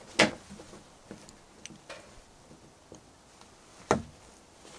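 Small clicks and ticks of a blade cutting into a dry, hard goldenrod gall against a plastic truck-bed liner, with a sharp click just after the start and another near the end.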